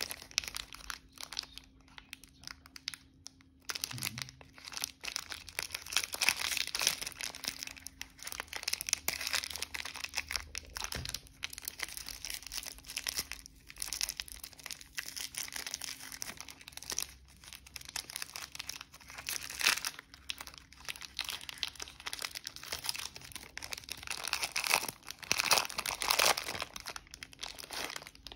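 A chocolate bar's plastic wrapper crinkling and tearing as fingers twist and peel it open, a dense crackle in uneven bursts, loudest near the end.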